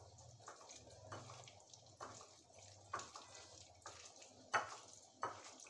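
A hand squeezing and mixing curd with sliced onions and green chilli in a ceramic bowl to make curd sambal: faint wet squelching, with a few light clicks.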